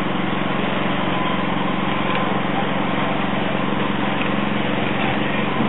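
Truck engine running steadily, a low, even drone with no breaks.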